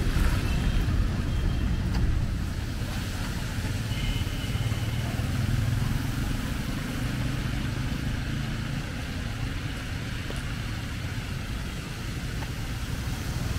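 Street traffic: motor vehicles running past as a steady low rumble.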